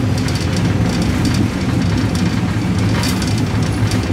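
Running noise of a moving Thai passenger train heard from inside the carriage: a steady low rumble with irregular clicking and rattling from the wheels and coach.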